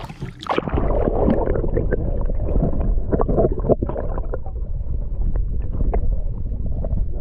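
Motorboat under way: a steady loud rumble with scattered knocks and wind on the microphone, starting abruptly about half a second in.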